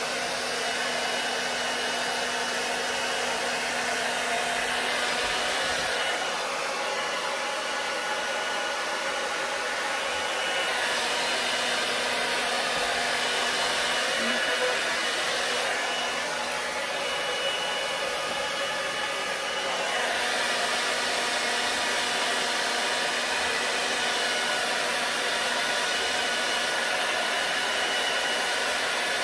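Handheld hair dryer blowing steadily, its tone changing every few seconds.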